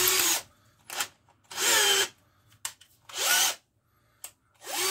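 Bosch GSB 120-LI 12 V cordless drill spun in four short trigger pulls about a second and a half apart, the motor whine rising and falling with each pull.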